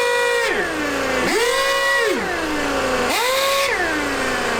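Small electric power tool motor pulsed on its trigger in short bursts. Each burst is a whine that spins up quickly, holds briefly with a hiss, then winds down, about every second and a half.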